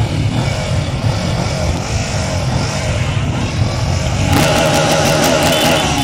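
Motorcycle engines running at low speed, a steady low rumble. About four seconds in a louder, harsher sound joins, with rapid clatter and high tones.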